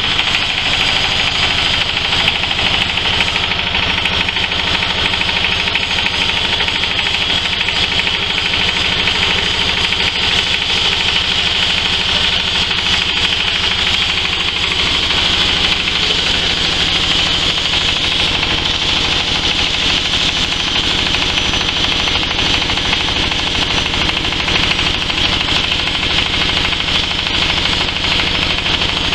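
Belt-driven stainless steel hammer mill running steadily, a loud, dense rattling whir from its spinning hammers and rotor as it grinds.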